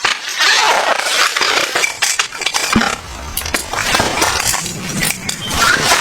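Light clinks, knocks and rustling of small objects being handled, with many short clicks in quick succession.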